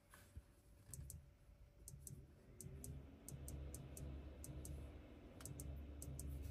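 A car's touchscreen clicking many times in quick, uneven runs as a gloved finger presses its buttons, the clicks being the screen's haptic press feedback, over a low rumble.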